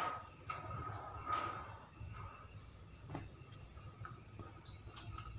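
Crickets trilling steadily at a high pitch, with rustling and a few light clicks as rabbits move in a wire-mesh cage right by the microphone; the loudest rustle comes at the very start.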